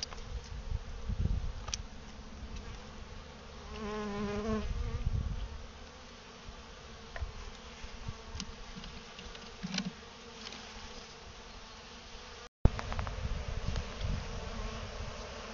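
Honeybees, apparently European dark bees, buzzing as a steady hum around an opened hive, with one bee passing close and buzzing loudly in a wavering pitch about four seconds in. A few light knocks and a low rumble come and go under the hum, and the sound drops out briefly near the end.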